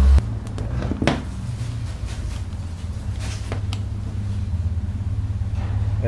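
Steady low machine hum in the background, with a few light clicks about a second in and again past the middle.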